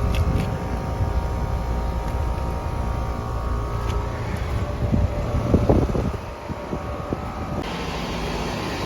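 2020 Trane XR central air-conditioner outdoor unit running: a steady hum from the compressor and condenser fan, with several constant tones over a low rumble.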